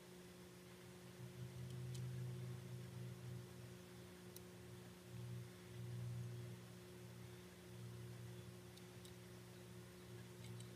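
A faint, low electrical hum that swells and fades in strength, with a few faint ticks; the soldering itself makes no sound that stands out.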